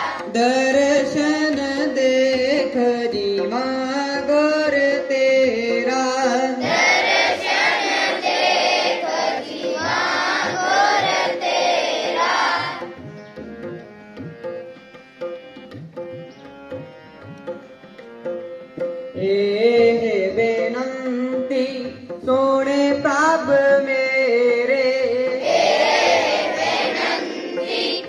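Children singing a Sikh shabad together to harmonium accompaniment. The singing breaks off for several seconds in the middle, leaving a quieter accompaniment, then resumes.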